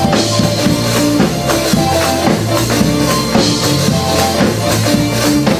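Live gospel praise band playing an up-tempo instrumental groove between sung lines, a drum kit keeping a steady beat over low bass notes.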